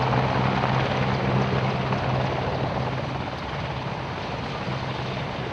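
AgustaWestland Merlin helicopter in low flight: a steady rotor and turbine drone with a constant low hum, easing off a little in loudness partway through.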